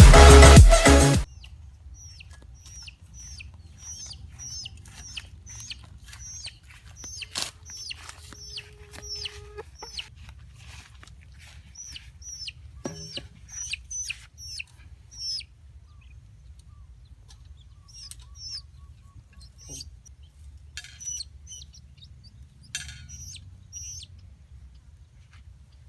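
A chicken calling over and over with short, high-pitched calls, about two a second, that grow sparser in the second half. Loud electronic music cuts off about a second in.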